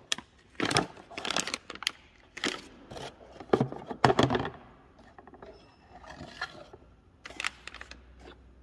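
Plastic packaging crinkling in the hand and a cardboard box being handled and set down: a quick run of rustles and taps over the first four seconds or so, then only a few small clicks.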